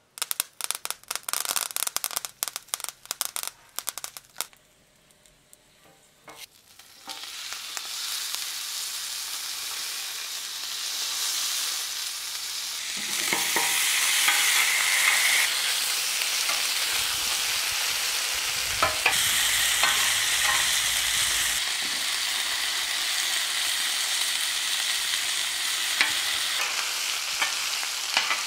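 Côte de bœuf searing on a hot flat-top griddle. A steady sizzle starts about seven seconds in and grows louder, with potato slices frying alongside. Before that come a few seconds of rapid dry clicking.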